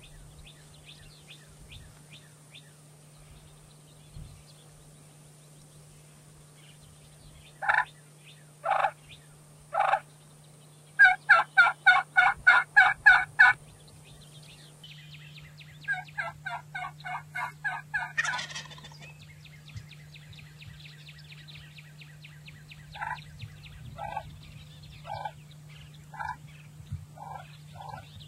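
Turkey yelping: three loud single yelps about a second apart, then a fast, even run of about ten yelps, followed by a quieter series and scattered single calls near the end.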